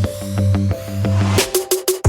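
Upbeat electronic background music with a steady beat and bass, a rising noise swell, then a short break of a few sharp hits near the end.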